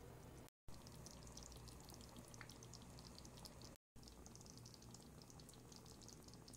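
Faint bubbling and crackling of a fish curry simmering in a pan, many small pops over a low hum. The sound cuts out briefly twice.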